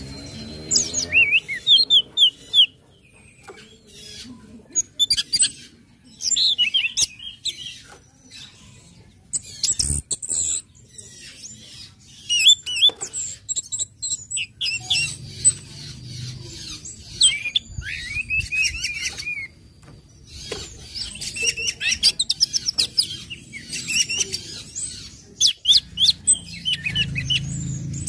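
Orange-headed thrush calling: clusters of sharp, high chirps and quick sweeping whistled notes, broken by short pauses.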